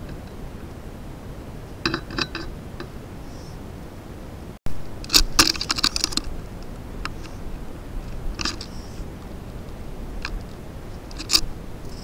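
Scratchy clicks and fluttering from birds landing, pecking and flapping at a snow-covered bird bath. They come in short bursts, the longest a little over a second about five seconds in, with a brief dropout just before it.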